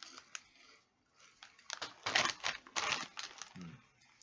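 Crisp plastic snack bag crinkling as it is handled: a few faint clicks at first, then about a second and a half of loud, rapid crackling from roughly two seconds in.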